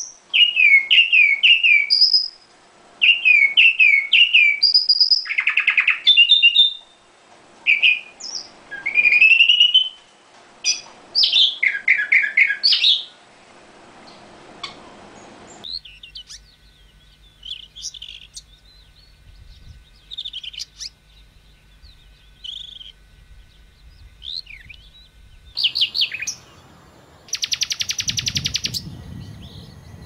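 Common nightingale singing: varied phrases of repeated whistled notes, slurred pitch sweeps and rapid trills, separated by short pauses. About halfway the song turns fainter and sparser in a quieter recording, with a fast, even rattle of notes near the end.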